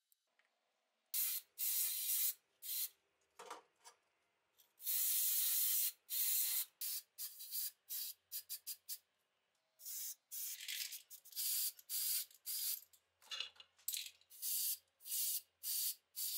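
Aerosol spray paint can hissing in bursts: a few short sprays, one longer spray of nearly two seconds about five seconds in, then a run of quick short bursts through the second half.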